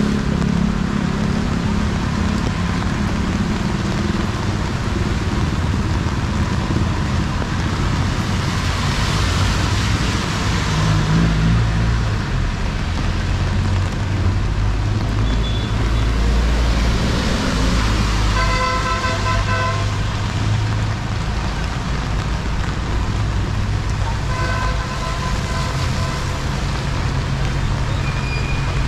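Street traffic in the rain: vehicle engines running close by over a steady hiss of rain and wet road noise. A vehicle horn sounds twice, the second time about six seconds after the first.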